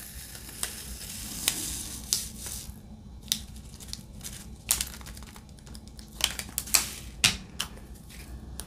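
Handling small clear plastic storage containers of diamond painting drills: scattered sharp clicks of lids being fitted and pressed, with light plastic crinkling.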